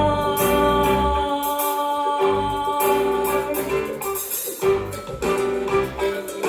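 Musical-theatre song: a group of voices singing over instrumental accompaniment, with long held notes.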